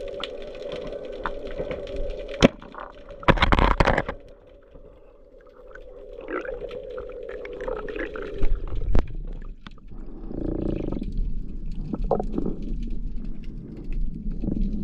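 Muffled underwater sound heard through a camera's waterproof housing. A steady hum runs until about two-thirds of the way through. Sharp knocks sound now and then, and a brief dense rush of bubbling noise comes a few seconds in.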